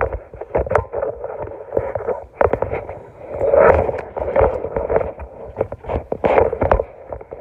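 Kitchen handling noise: irregular knocks and clicks mixed with rustling, loudest a little past halfway through and again near the end.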